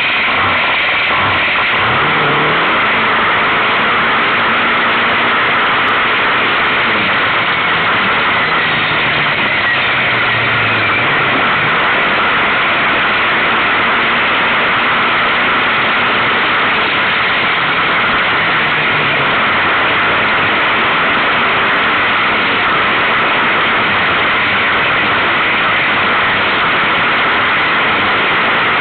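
Kawasaki KFX700 quad's V-twin engine running at speed, its pitch rising and falling with the throttle, under a heavy rush of wind noise on the microphone.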